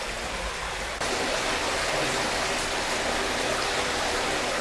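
Floodwater flowing into a house through a broken wall, a steady rushing that gets louder about a second in.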